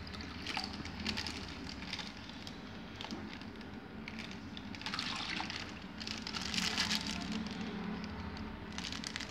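Water splashing and pouring out of a plastic bag into a shallow tub, with the plastic bag crinkling; the crinkling is loudest about halfway through and again near the end.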